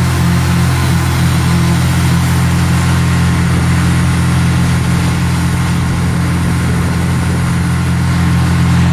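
A large engine running loud and steady at a constant speed, with no change in pitch.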